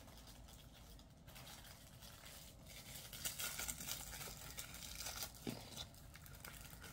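Faint crinkling and rustling of packaging being handled, quieter at first and busier from about three seconds in.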